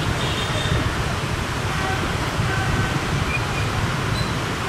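Steady low jet rumble of an Airbus A330 rolling slowly along the runway after landing, its engines at low power.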